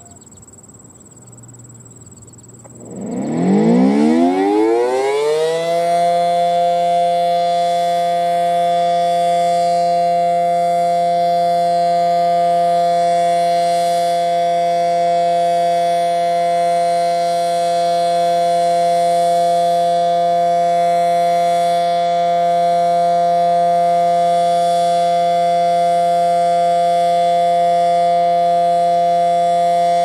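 Federal Signal SD-10A dual-tone outdoor warning siren winding up about three seconds in, its pitch rising and then levelling into a loud, steady two-tone wail: the steady Alert signal.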